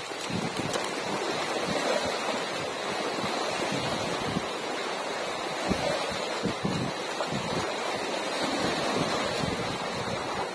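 Wind buffeting the microphone in irregular low gusts over a steady rush of sea water.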